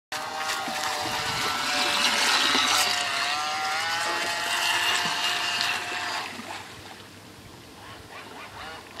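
Aquacraft EP-1 electric outboard on a radio-controlled boat running at speed: a high motor whine that dips slightly in pitch and rises again, with water hiss from the hull. It fades away about six seconds in.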